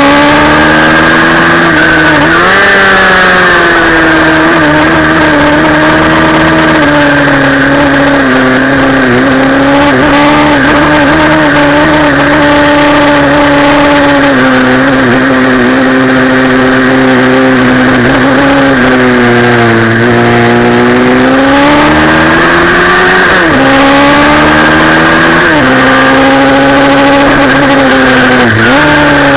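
Pit bike engine heard onboard while lapping, running hard and loud. Its pitch sags and climbs back several times as the rider eases off and accelerates again, with a long, smooth dip and rise about two-thirds of the way through.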